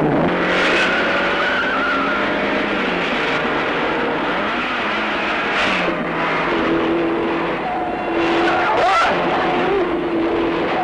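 Car-chase soundtrack from a 1970s action film: car engines running hard and changing pitch, with tyres squealing and skidding in several short bursts.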